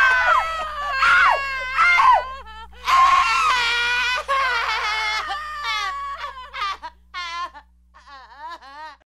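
Several high voices screaming and wailing over one another, part of a soundtrack evoking witches burned at the stake. The cries waver in pitch, break into shorter, fainter calls in the second half, and die away just before the end, over a low steady hum.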